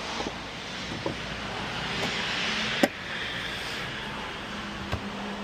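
Plastic trim clips being pushed home in a Porsche Taycan's front trunk: a few light clicks, a scraping rustle of the trim panel that builds for a couple of seconds, then a sharp snap just before three seconds in and a smaller one near the end.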